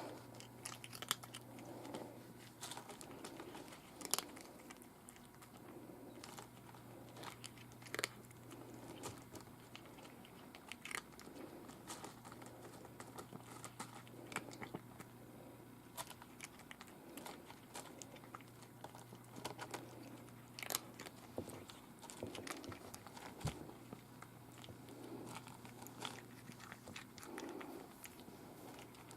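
A black cat eating, chewing its food with irregular sharp crunching clicks. A steady low hum runs underneath and drops out twice for a few seconds.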